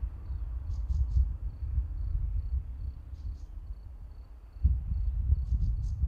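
A low, fluctuating rumble that drops away briefly past the middle. Over it an insect repeats a steady, pulsing high note, and short high chirps come in little groups of two or three, three times.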